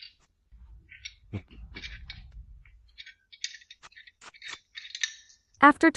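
Wrenches working the bolts on a pug mill's shell: scattered metallic clicks, clinks and short scrapes, with a low rumble through the first half.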